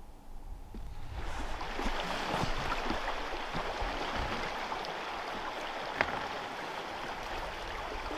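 River water rushing, a steady hiss that comes up about a second in and holds, with one sharp click about six seconds in.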